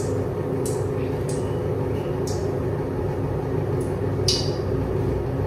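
Steady low mechanical hum with a few fixed low tones, with a handful of short, sharp scrapes or sizzles as fried food is lifted from hot oil with a spatula.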